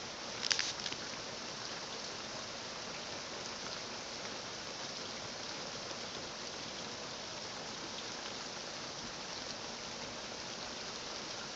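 Rain falling steadily in large drops that are turning to slush, an even hiss, with a couple of sharp taps about half a second in.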